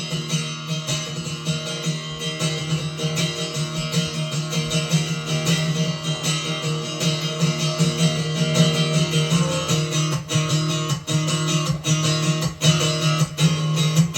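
Acoustic guitar strummed through an instrumental break between sung lines, the strokes growing sharper and more frequent in the second half.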